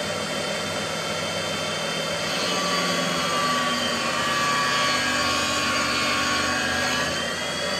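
Thor valve grinding machine running, its wheel grinding the tip of a valve stem as it is fed in about a thousandth of an inch at a time. A steady motor hum with a higher grinding hiss and whine that swells for a few seconds through the middle, then eases near the end.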